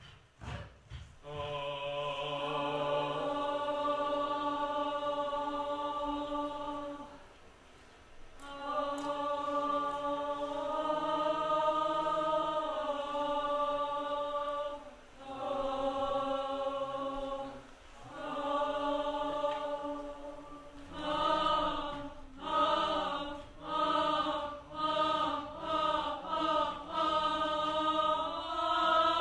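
A group of voices singing unaccompanied in harmony: long held chords of several seconds with short breaks between them. Past the middle the singing turns into short repeated notes, a little over one a second.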